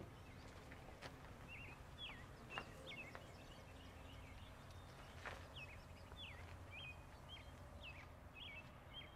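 Faint bird chirping, a quick series of short chirps, over a low steady background rumble, with a few light clicks.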